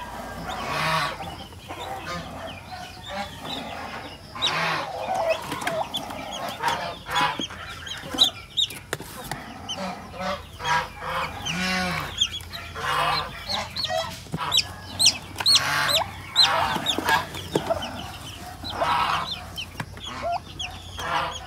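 Poultry clucking, with the high, repeated cheeping of young Black Australorp chicks, thickest about two thirds of the way through.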